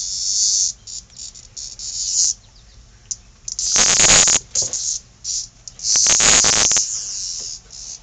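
A cicada buzzing loudly in irregular bursts as kittens bat at it, the distress buzz of a caught cicada. The two longest and loudest bursts come about halfway through and again two seconds later.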